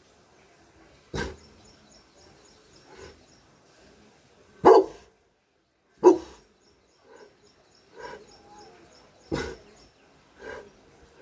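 Dogue de Bordeaux (French mastiff) barking: about six single barks spaced irregularly, a second or more apart, the loudest two near the middle.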